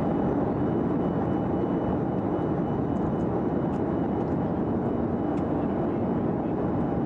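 Airliner cabin noise in flight: the steady roar of jet engines and rushing air heard from inside the passenger cabin, with a faint high steady whine.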